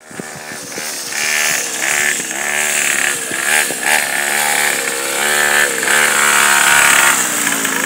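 Small two-stroke engine of a 49 cc mini ATV running, revving up and down over and over as the throttle is opened and eased.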